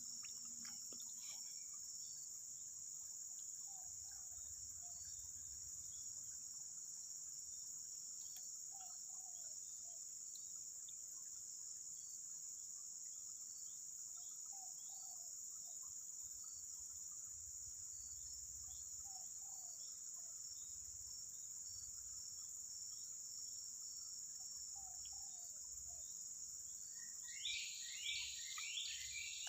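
Steady high-pitched drone of insects, crickets or cicadas, with a short lower call repeating about every five seconds and a quick run of higher chirps near the end.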